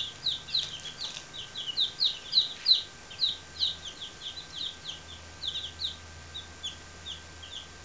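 Young chicks, four days old, peeping: many short, high peeps in quick succession, several a second, thinning out to scattered single peeps after about four seconds.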